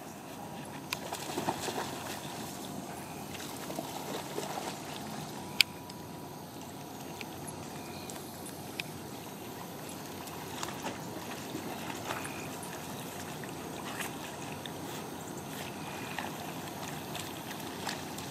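Pond water splashing and lapping as two dogs swim and paddle, over a steady hiss. One sharp click comes about five and a half seconds in.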